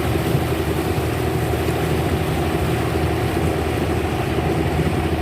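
A boat's motor running steadily at an even, low speed.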